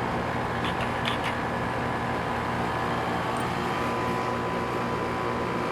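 Outdoor unit of a 2001 Trane XE1000 5-ton heat pump running steadily, a constant mechanical hum of compressor and fan, with a few faint ticks about a second in.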